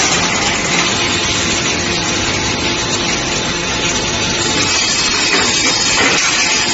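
Machinery of a steel drum band production line running, a loud, steady mechanical noise with a faint hum underneath.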